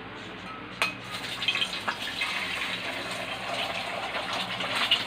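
Beaten eggs going into a pan of hot oil and starting to fry: a sharp knock about a second in, then a crackling sizzle that slowly grows louder.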